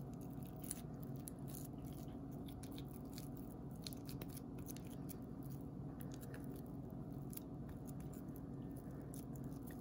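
Hands squeezing and packing damp grated soap shavings into a tight ball, the shavings giving soft irregular crunching and crackling clicks. A steady low hum runs underneath.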